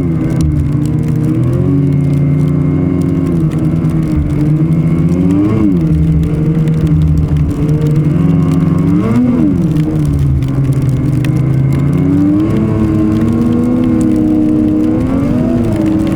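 Ski-Doo Renegade XRS 850 snowmobile's two-stroke twin running on the trail, its engine note rising and falling briefly about five and a half and nine seconds in, then climbing to a higher steady pitch about twelve seconds in.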